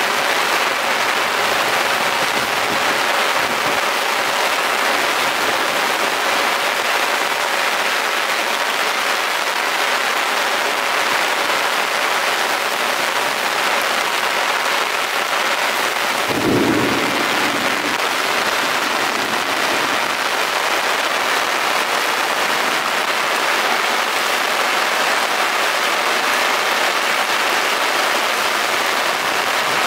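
Rain pouring steadily in a storm, an even hiss with no letup. About sixteen seconds in there is a short low rumble.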